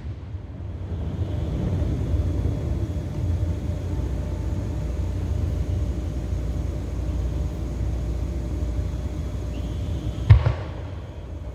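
Distant fireworks: a steady low rumble of booms rolling in, with one sharp bang about ten seconds in.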